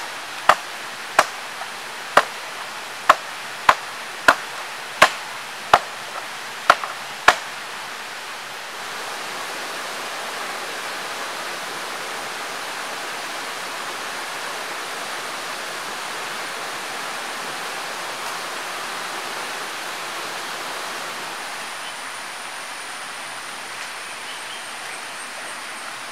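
About ten sharp chops of a blade into wood in the first seven seconds or so, cutting down a sapling pole. After that comes the steady rush of a nearby stream.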